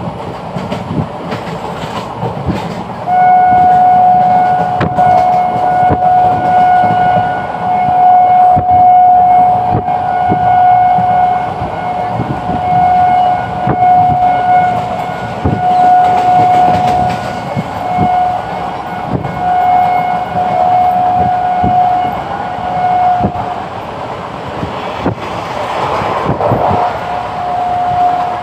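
Indian Railways passenger train running at speed, its wheels clicking over the rail joints, with a locomotive horn on one pitch blowing a long run of blasts from about three seconds in for some twenty seconds, then once more near the end.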